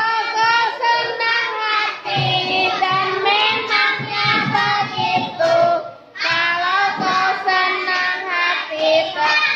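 Young children singing a song together, with short breaks between phrases about two and six seconds in.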